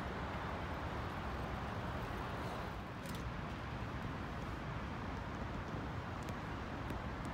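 Steady outdoor background noise, a low even rumble and hiss, with a few faint, short high ticks about three seconds in and again near the end.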